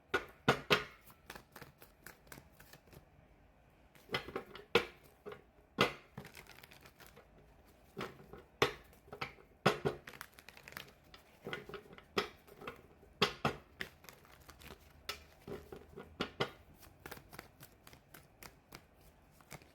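Tarot cards being shuffled and handled: irregular sharp clicks and slaps of cards, some in quick clusters.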